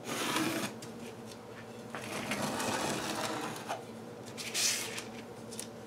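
Pencil scratching a line along a wooden straightedge across the back of a sandpaper strip, in several scratchy strokes with paper rustling and a few light knocks.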